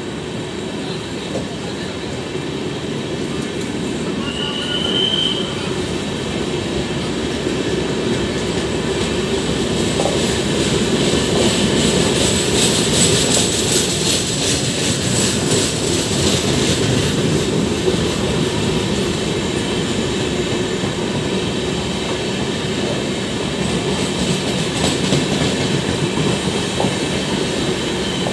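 Passenger train of LHB coaches rolling past, its wheels rumbling and clacking steadily over the rail joints. The noise grows louder about ten seconds in. A short high squeal rises about five seconds in.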